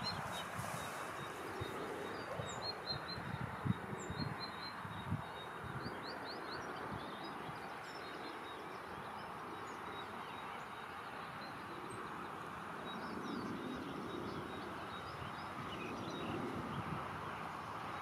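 Small birds chirping in short, high, scattered calls over a steady background hiss, with a few low thumps in the first five seconds.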